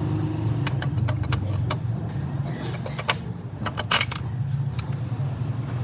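Suzuki WagonR engine running with a steady hum, with sharp metallic clinks, the loudest about three and four seconds in.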